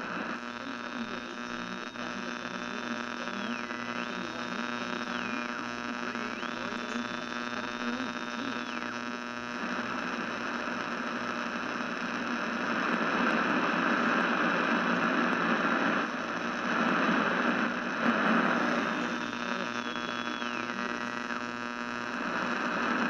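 A steady electrical hum with many overtones and a hiss over it. A high whistling tone holds, then dips and climbs back several times. The hiss grows louder about halfway through.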